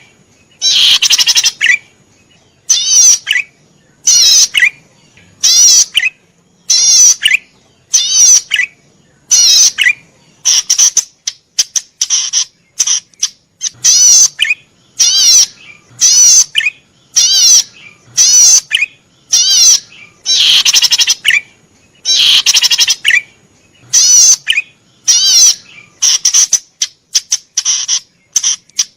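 A cici padi (cisticola) singing loudly. It gives short, high, fast-trilled phrases over and over, about one a second, with short gaps between them. Many phrases end in a brief lower note.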